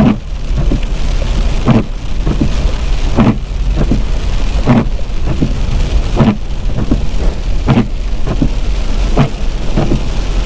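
Rain drumming on a moving truck, heard from inside the cab over a low road rumble, with the windshield wipers thumping through a sweep about every one and a half seconds.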